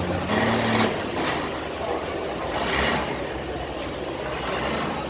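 A tractor engine running steadily at low speed, with voices in the background.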